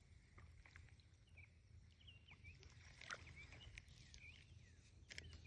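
Faint outdoor ambience of small wild animals chirping: many short, quick chirps with little pitch glides, over a low steady hum.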